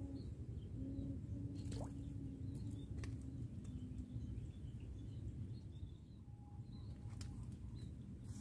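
Faint outdoor ambience: a steady low rumble with a few short clicks and faint bird chirps.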